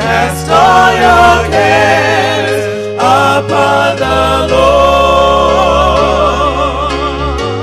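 Gospel music: singing voices with vibrato, choir-like, over sustained bass notes.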